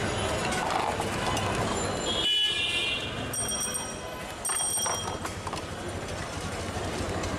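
Busy street noise: traffic running steadily, with a horn sounding briefly about two seconds in.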